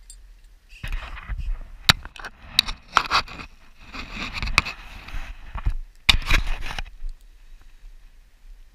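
Water splashing as a hooked catfish thrashes at the surface, mixed with scraping and sharp knocks close to the microphone. It comes in irregular bursts from about a second in and stops about two seconds before the end.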